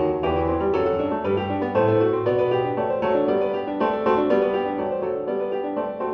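Background piano music, several notes sounding together and changing quickly.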